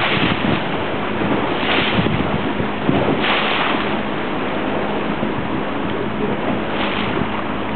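Wind buffeting the microphone over water rushing past a slowly moving boat, with a faint steady engine hum underneath; the wind swells in gusts about 2, 3.5 and 7 seconds in.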